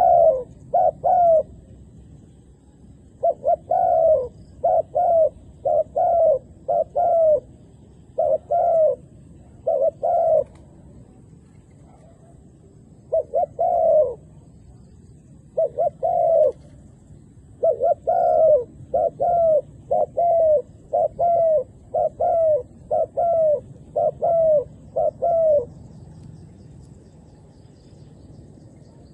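Spotted dove cooing: loud, repeated coo notes that fall slightly at the end, in runs of one to about a dozen separated by short pauses. The calling stops for the last few seconds.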